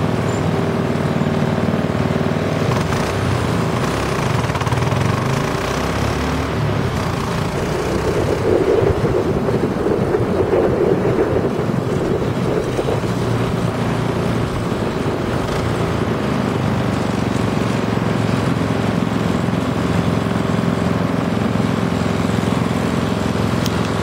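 Engine of a homemade three-wheel go-kart running under load as it is driven up through the gears to third, a steady drone that grows louder about nine to eleven seconds in.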